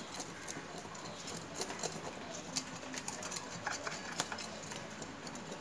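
Fish being scaled: short, irregular scraping strokes and clicks of a blade or scale remover rasping against the fish's scales.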